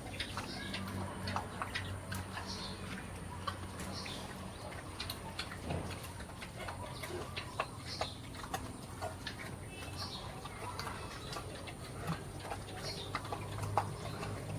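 Farmyard ambience: scattered light clicks and ticks, with a short high chirp every couple of seconds over a low steady hum.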